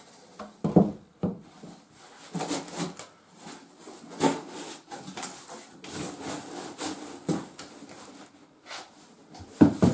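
Cardboard shipping box being handled and unpacked: flaps scraping and rustling, the box and the boards inside shifted and knocked about, with a sharp thump about a second in and another near the end.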